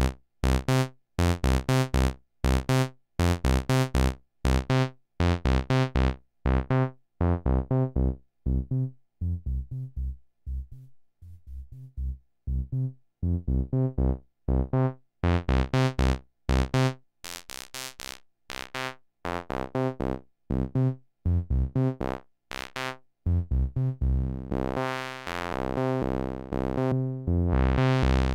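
Fred's Lab Zekit analog-digital hybrid synthesizer playing a repeating sequence of short, low notes while its filter cutoff is swept. The notes turn dull around the middle as the filter closes, then brighten again, and near the end they run longer and fuller.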